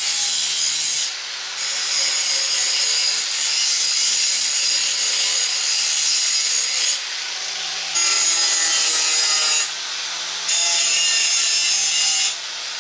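Drill spinning a wire brush against wood, scouring the surface rough; it runs steadily with a motor tone under a harsh scratching hiss, easing off for short moments a few times.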